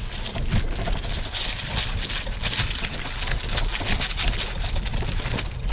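Dry weeds and brush crackling and scraping against a road bicycle and its rider, with a steady low rumble from the tyres riding over rough, overgrown ground.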